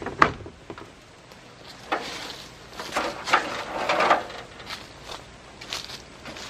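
Aluminium ladder being moved and set against the side of an RV: clattering knocks and scraping, loudest between about two and four seconds in, followed by a few lighter knocks as someone steps onto it.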